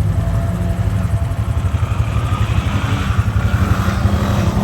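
Honda ATV engine running with a steady low rumble, getting louder near the end.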